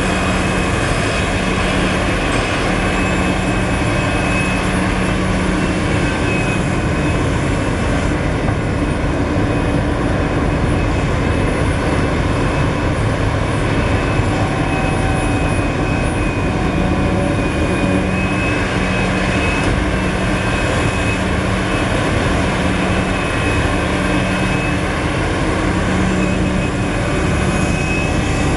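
Large Liebherr R974 hydraulic crawler excavator working: its diesel engine runs steadily under load as it digs, swings and dumps dirt into a Caterpillar 769D haul truck. A steady high whine runs throughout, and a lower hum comes and goes.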